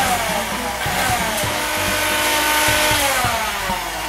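Electric mixer running continuously, whisking egg whites toward soft peaks for meringue; its motor pitch wavers, dipping and settling.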